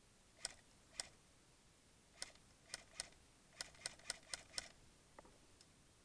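Airsoft guns firing single shots: about ten sharp, short snaps, two spaced out at first, then a quicker irregular string of them, and a fainter one near the end.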